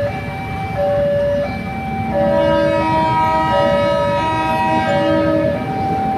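A train horn sounds one long, rich chord from about two seconds in until shortly before the end, over a simple melody of stepping notes that runs throughout.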